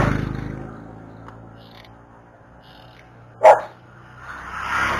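A dog barks once, sharply, about three and a half seconds in, over a rushing noise that fades during the first second and swells again near the end.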